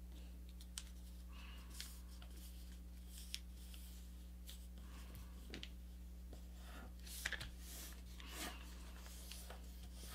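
Faint rustling and crinkling of a sheet of paper being folded and creased by hand, with scattered soft taps and a brief louder crinkle about seven seconds in, over a steady low hum.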